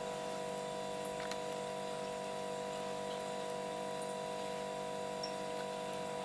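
Steady hum made of several fixed tones that do not change, with a few faint ticks.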